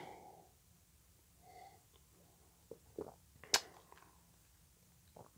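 Quiet mouth sounds of a man tasting a sip of beer: a faint soft murmur, then a few small lip and tongue clicks, the sharpest about three and a half seconds in.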